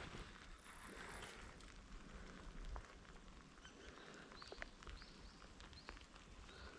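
Near-silent lakeside ambience: a faint hiss with a few short, high bird chirps in the second half and scattered light ticks.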